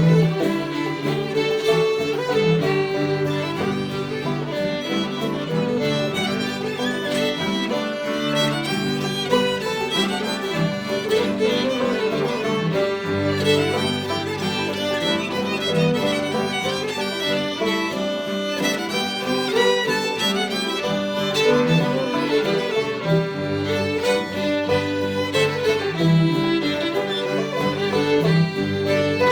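String band playing an instrumental old-time fiddle tune, the fiddle carrying the melody over a steady accompaniment with a moving bass line.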